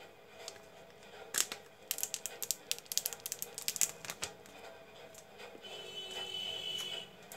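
Clear plastic shrink wrap crinkling as it is peeled off a phone box: a quick run of sharp crackles starting about a second and a half in and lasting roughly three seconds, then quieter handling. Faint background music underneath.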